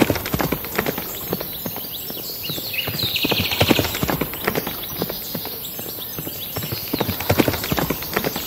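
Walking toy horse moving along, with a steady run of clip-clop hoofbeat clicks. A brief higher-pitched sound comes about three seconds in.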